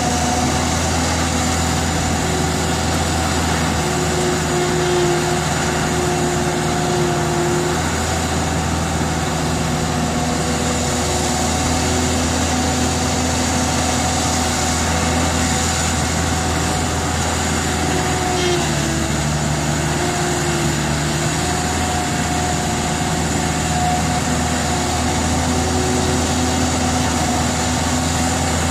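Caterpillar E120B excavator's diesel engine running steadily as the machine works its boom and bucket, the pitch of its hum dipping briefly about two-thirds of the way through.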